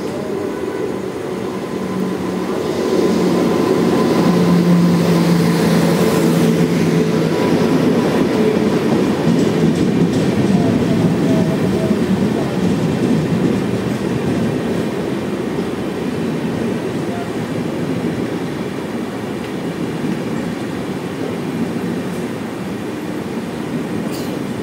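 Express train pulling into a platform behind a WAP-7 electric locomotive: a steady rumble of wheels on rails that swells about three seconds in as the locomotive passes, carrying a low steady hum for a few seconds. The rumble then eases a little as the coaches keep rolling past.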